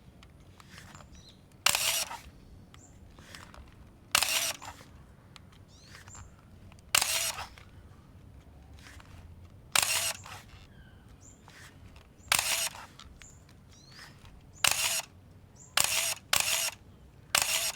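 Pentax SF7 35mm autofocus SLR firing its shutter over and over, each release a short sharp mechanical clatter. About nine releases, every two to three seconds at first and then quicker in succession near the end.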